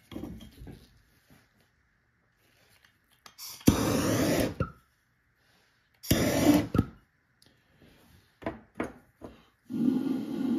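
Handheld gas torch fired in two short bursts of hiss, about four and six seconds in, trying to light acetone in a jam jar pulse jet that does not start. A few light clicks follow, and a longer rushing sound begins near the end.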